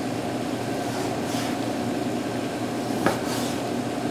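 Chef's knife slicing and scraping the fat off a slab of guanciale on a cutting board: a few soft strokes, about a second in and again near the end with a light click. A steady machine hum runs underneath.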